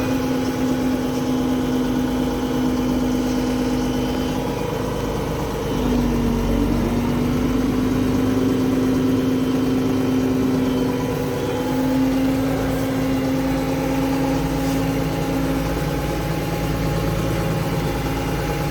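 Tractor engine running steadily while pulling a hay baler at low speed. About six seconds in its pitch dips briefly and it gets louder, then it holds steady again.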